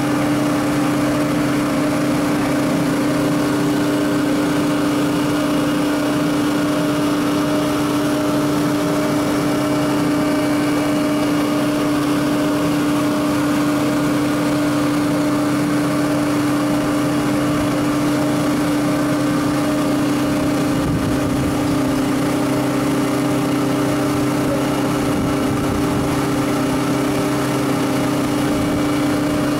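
Industrial machinery running steadily: a constant hum carried by one strong steady tone, with fainter tones above it and an even rush of noise underneath.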